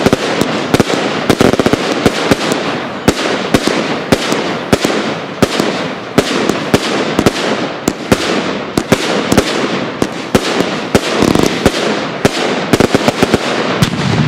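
Professional fireworks display in a rapid barrage: aerial shells launching and bursting, several sharp bangs a second over a continuous crackling wash, which stops abruptly at the very end as the show finishes.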